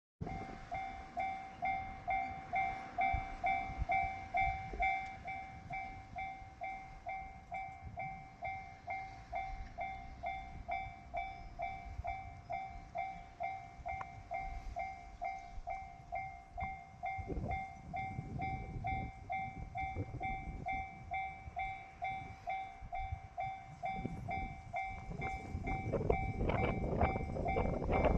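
Japanese railway level-crossing warning bell ringing steadily, a two-tone electronic ding about twice a second. The rumble of an approaching train grows in the second half, with wheel clicks near the end as it nears the crossing.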